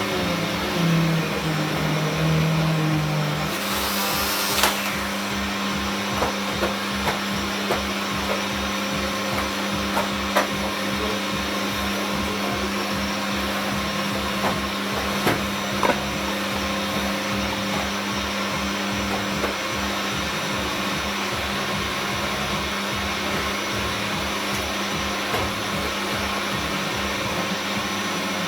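Vacuum cleaner running steadily with a constant hum, a brief high hiss about four seconds in, and scattered sharp clicks and knocks.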